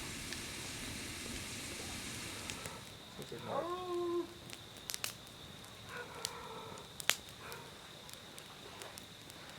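An animal's pitched cry, rising and then held for under a second, about three seconds in, with a fainter second cry around six seconds. Both sit over a faint steady hiss and scattered small clicks.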